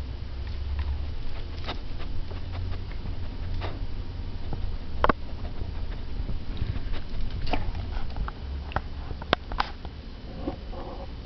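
A dog sniffing right at the microphone: short sniffs and soft nose ticks at irregular intervals over a low rumble.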